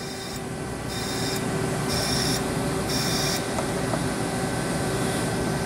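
Ultrasonic sieve system driving a fine 325-mesh screen in pulse mode: a high-pitched hiss comes in four short pulses about a second apart, then stops about three and a half seconds in, over a steady background hum.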